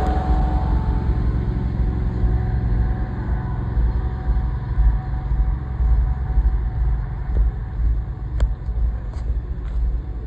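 Engine of a high-pressure drain jetter running with a steady low rumble, its pitched hum fading over the first few seconds, with a few sharp clicks near the end.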